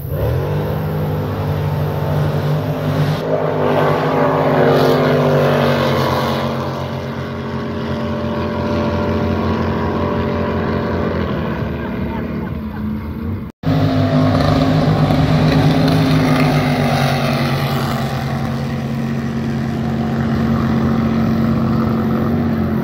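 Racing jet boat running flat out as it speeds by: a loud, steady engine drone whose pitch slowly falls. The sound cuts out sharply a little past halfway, then a second stretch of the same falling engine drone follows.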